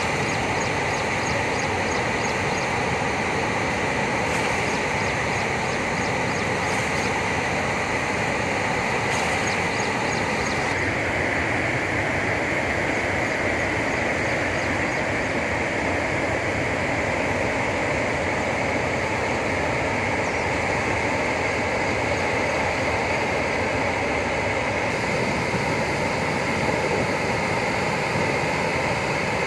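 Steady rushing of floodwater pouring through a dam's open spillway gates and churning in the river below.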